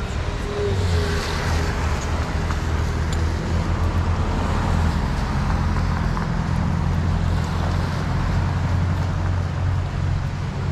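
Road traffic with a vehicle engine idling nearby, a steady low hum.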